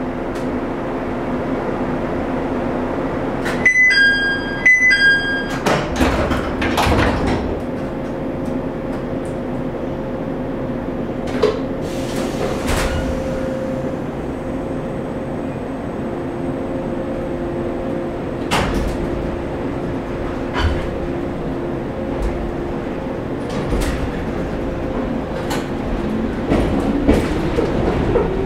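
Interior of a 1965 JNR 115 series electric train car. A two-note door chime, high then lower, sounds twice about four seconds in, and the sliding doors then close with a clatter. After that the car's equipment hums steadily, with occasional clicks and knocks. Near the end the MT54 traction motors start to whine, rising in pitch as the train pulls away.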